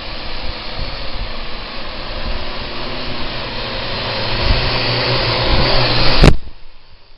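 Parrot AR.Drone quadcopter's rotors whirring steadily and growing louder, then a sharp knock about six seconds in and the rotors stop at once.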